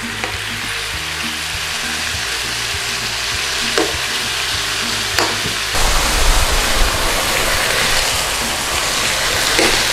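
Cubed beef searing in hot oil in a nonstick frying pan, sizzling steadily, with a metal spoon stirring and scraping the pieces now and then. The sizzle gets a little louder about six seconds in.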